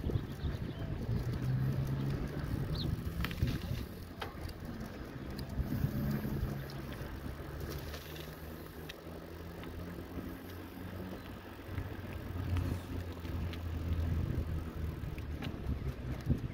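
Low rumble of wind and motion on the microphone over the drone of a vehicle engine on the road, with scattered light clicks and rattles.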